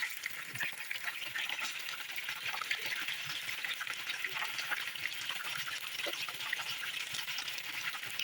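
Fish frying in hot oil: a steady sizzle with dense small crackles and pops.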